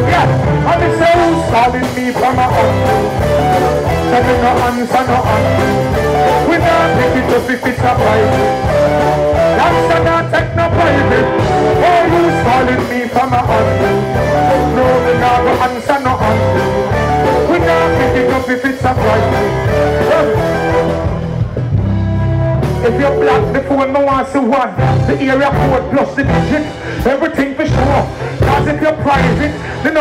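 Live reggae music played loud through the stage sound system, with a vocalist on the microphone. About two-thirds of the way through, the music briefly drops to mostly bass before the full mix comes back.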